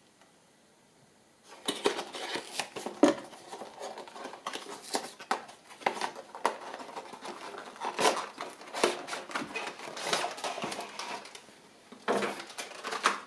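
Packaging being handled: a boxed model train wagon's cardboard window box and crumpled packing paper give irregular rustles, crinkles and light taps, starting after about a second and a half of near silence.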